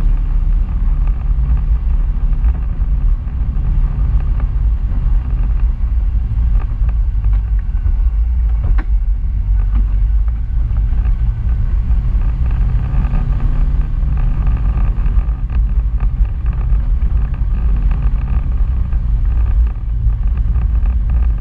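Polaris RZR side-by-side's engine running steadily while it drives over a rough dirt trail, with a single sharp knock about nine seconds in.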